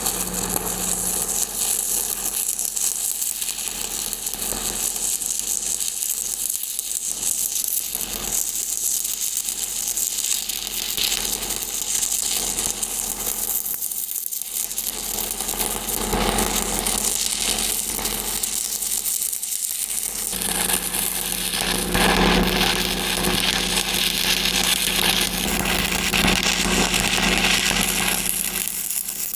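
Stick-welding arc crackling and sizzling steadily as a weld bead is run downhill around a pipe. A low steady hum comes in about two-thirds of the way through.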